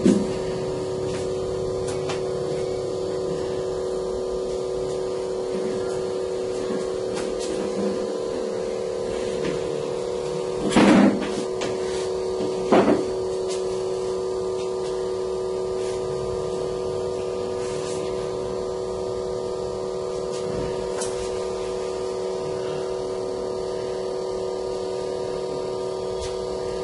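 Steady electric hum of an LCD separator machine's vacuum pump running while the plate heats up, a constant drone with a few fixed tones. Two brief louder noises break in about eleven seconds in and again two seconds later.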